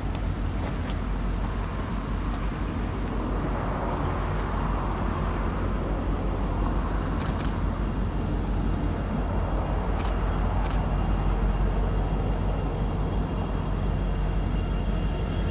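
Low, steady rumble of a distant diesel-hauled freight train approaching, slowly growing louder.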